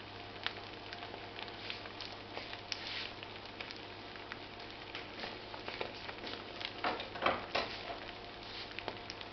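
Egg omelette frying in oil in a small pan on a hob that has just been switched off: scattered pops and crackles over a faint sizzle, with a brief run of louder crackles about seven seconds in.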